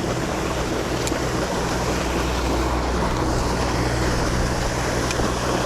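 Steady rushing wind on the microphone with a low steady hum beneath it. There is a faint click about a second in and another near the end.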